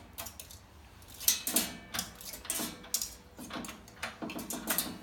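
Irregular metal clicks and clanks from handling a Marlon coil-binding crimper as its height-adjustable table is raised and lowered.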